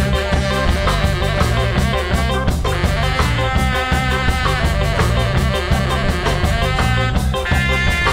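Live band playing a reggae and tsifteteli fusion tune: a saxophone carries the melody in held notes over electric guitar, bass and drums keeping a steady beat. The saxophone line climbs higher near the end.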